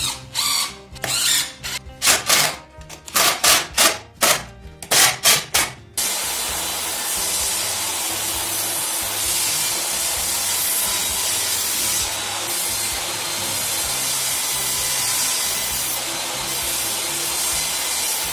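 Cordless drill driving screws into a pine frame in a quick string of short whirring bursts. About six seconds in, a DeWalt jobsite table saw takes over, running steadily as boards are fed through the blade.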